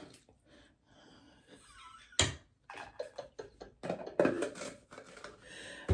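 Quiet table sounds during a meal: a single sharp click about two seconds in, then soft handling and mouth sounds with a brief stifled laugh.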